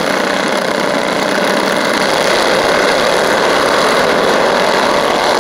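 A pack of racing mini bikes' small engines running together in a steady, dense drone.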